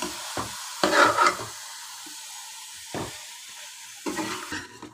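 Spoon stirring and scraping a cauliflower-and-chicken curry in a metal pot, with a steady sizzle from the pan underneath. Several scrapes and knocks of the spoon against the pot, the loudest about a second in.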